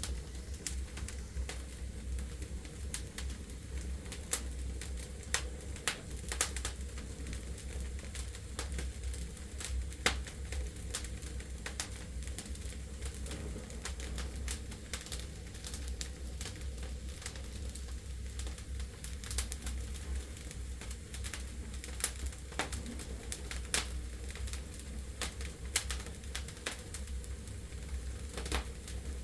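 Wood fire burning in a fireplace, the logs crackling with irregular sharp pops and snaps over a steady low rumble.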